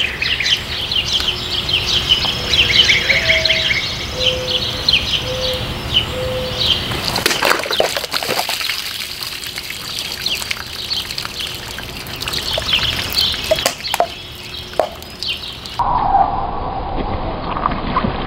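Birds chirping steadily. Around seven seconds in, and again near fourteen seconds, come sharp cracks with splashing: a Cold Steel Voyager XL folding knife slashing through water-filled plastic bottles.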